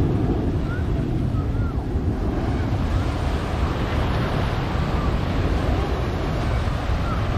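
Steady outdoor wind noise buffeting the microphone, a dense low rumble with no breaks, with a few faint short chirps now and then.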